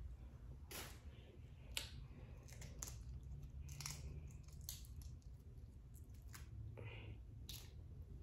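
Faint, scattered clicks and crackles, about one a second, as the shell is peeled off a boiled shrimp by hand.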